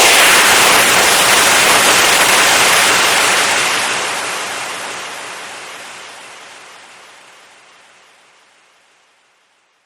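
Compressed air being released in a long hiss. It holds steady for about three and a half seconds, then slowly fades away to nothing.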